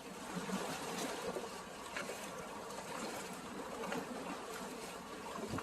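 Seawater lapping and washing in a steady wash, with a few faint small splashes.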